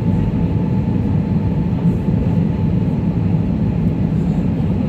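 Steady cabin noise inside an Airbus A320 descending to land: a low, even rumble of engines and rushing air.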